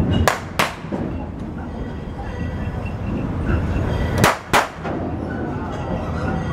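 Narrow-gauge passenger train rolling along the track: a steady rumble with two pairs of sharp clacks, about half a second in and again past the middle, as the wheels pass rail joints.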